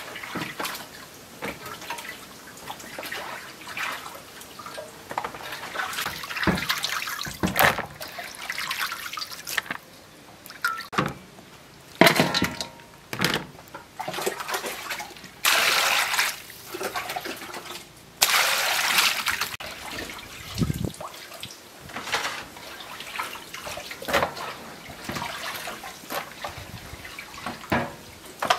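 Hands washing raw chicken in a metal basin of water: irregular splashing and sloshing, with two longer, louder stretches of splashing a little past halfway.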